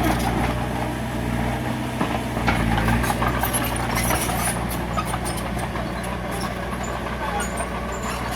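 Heavy diesel engine of a bulldozer running steadily, with scattered sharp metallic clanks over it.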